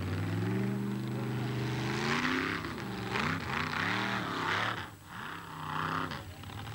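Formula offroad car's engine revving hard. Its pitch climbs about half a second in, then swings up and down again and again as the throttle is worked. The big tyres spin and spray gravel and dirt.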